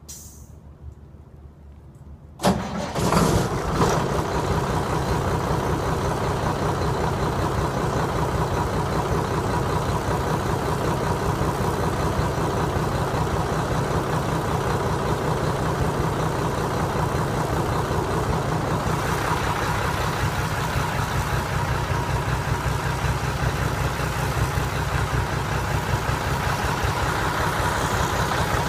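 Freightliner truck's diesel engine starting about two seconds in, with a brief louder burst as it catches, then settling into a steady idle with an even low throb.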